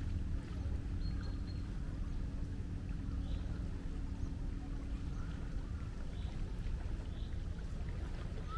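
Seaside ambience: a steady low rumble of waves and wind, with faint gull calls now and then.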